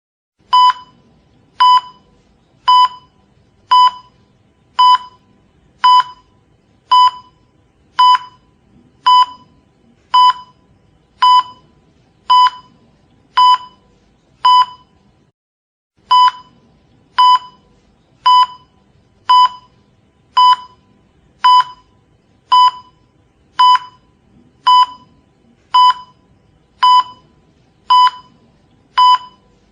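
Hospital heart monitor beeping: a short high beep about once a second in an even rhythm, over a faint low room noise.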